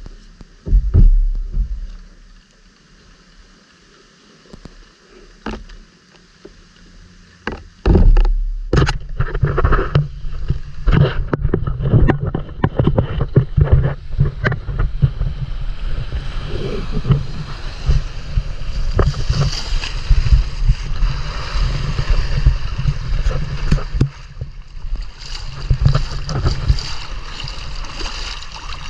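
A few knocks of a cloth being handled on a plastic sun lounger, then a quiet stretch. From about eight seconds a loud, continuous rumble with many knocks as the camera is carried, joined in the second half by a hiss of moving shallow seawater.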